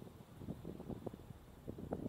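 Faint wind buffeting the microphone in quick, uneven gusts.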